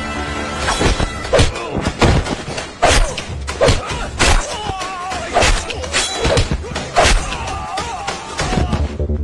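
Film fight sound effects: a quick series of punch and kick impacts, about a dozen sharp thuds and smacks, over a background music score.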